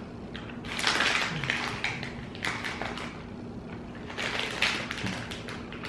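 A small plastic candy wrapper crinkling as it is handled, in several short rustles.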